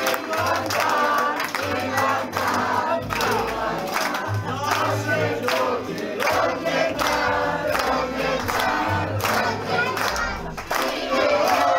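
A crowd of guests singing together to a piano accordion, clapping in time.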